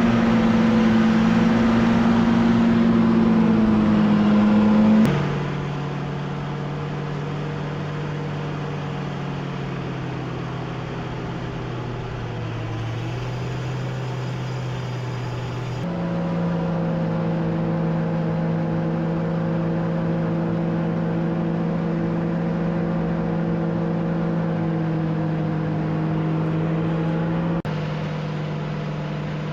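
Engine of a tracked snow vehicle running under load, its note steady between changes: it steps down sharply about five seconds in, climbs back up about sixteen seconds in, and drops slightly near the end.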